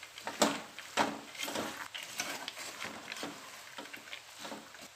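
Wooden spatula stirring sprouted moong beans into a potato-and-tomato masala in a metal pot: irregular scrapes against the pot and the clatter of the beans. The strokes thin out and grow softer toward the end.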